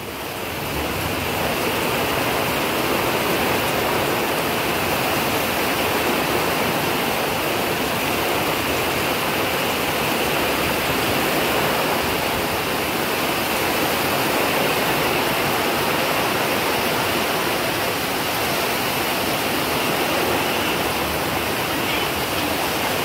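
Heavy rain pouring down in a loud, steady hiss, fading in over the first second or so.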